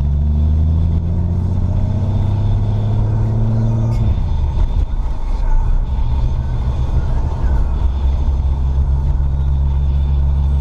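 Car engine and road rumble heard from the moving car: the engine's pitch rises steadily for about four seconds as it accelerates, drops abruptly with a short click as it shifts up, then runs steadily.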